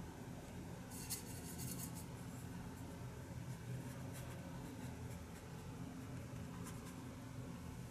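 Paintbrush stroking watercolour paper: a few short, light brushing sounds, the loudest about a second in, over a steady low hum.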